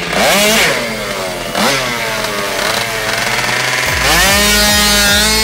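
Tuned two-stroke scooter engine revved in two sharp throttle blips, then wound up and held at high revs about four seconds in. Electronic dance music with a thudding beat comes in at about the same time.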